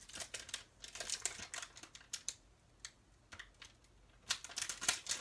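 Light clicks, taps and rustling of stamping tools and paper being handled on a work surface, in a cluster in the first second or so, quieter in the middle, and another cluster near the end.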